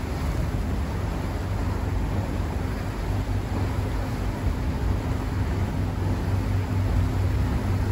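Steady low hum of a river boat's engine under a continuous rushing of wind and water, heard on board while the boat is under way.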